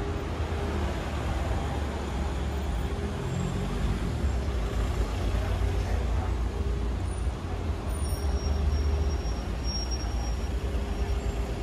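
Road traffic on a city street: passing vehicles make a steady low rumble of engines and tyres.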